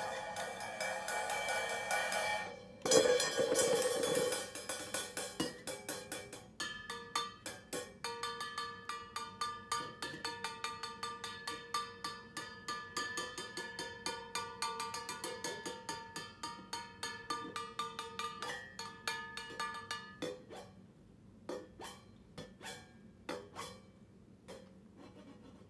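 A cymbal lying flat on the floor, tapped quickly and repeatedly with a drumstick while a white bottle is pressed against it, the strikes ringing on a few steady tones. There is one loud stroke about three seconds in, and the taps thin out to a few scattered, quieter strikes near the end.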